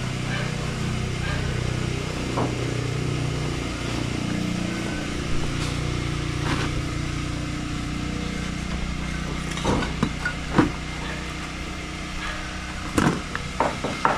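An engine running steadily with a low hum that shifts a little in pitch. A few sharp knocks come about ten seconds in and near the end.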